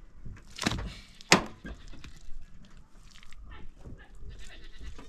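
Goats and sheep bleating, with a sharp knock about a second and a half in, the loudest sound.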